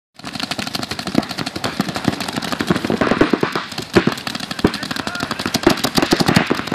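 Paintball markers firing in rapid, continuous strings, a dense run of sharp pops at many shots a second with several guns going at once.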